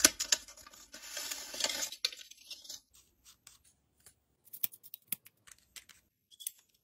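Rustling and scraping as a stylus case is handled and drawn out of its packaging, then a string of small sharp clicks and taps as a stylus is pushed into the pen-shaped case.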